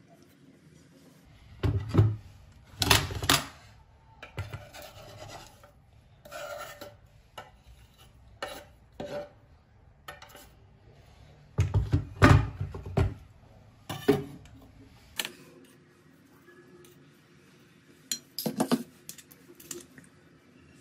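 A kitchen knife chopping fresh herbs on a wooden cutting board in a few sharp strokes, then more knocks and scrapes as the board and knife are knocked against a stainless steel bowl to push the herbs in. A few light clinks come near the end.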